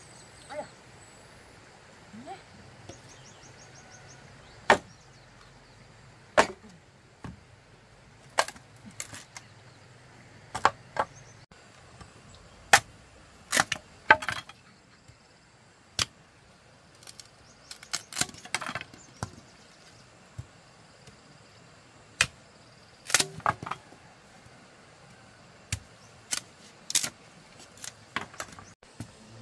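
Sharp blows of a hand tool striking, irregularly spaced at roughly one a second, some in quick pairs.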